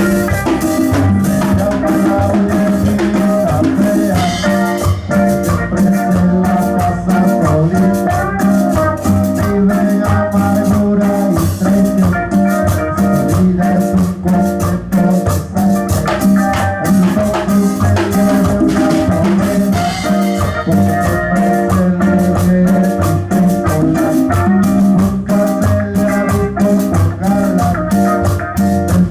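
Live band playing an instrumental dance tune, an electric guitar carrying the melody over drums and a steady shaker-like percussion rhythm.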